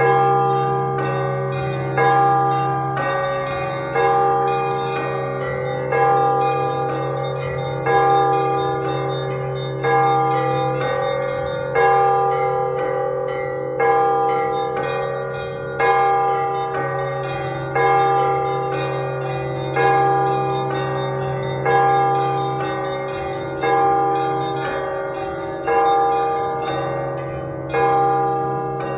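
Russian Orthodox church bells rung together in a zvon: a big bell struck about every two seconds, with smaller bells chiming quickly in between and a deep ringing tone carrying underneath.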